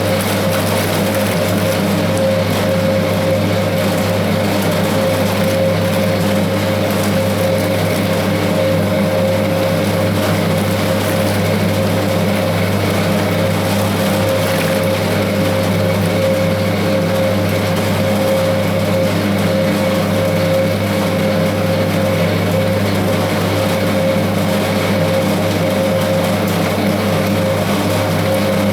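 1960s Hoover 0321 wringer washing machine running steadily, its electric motor churning the wash water to dissolve the washing powder: an even low hum with a steady higher tone over it.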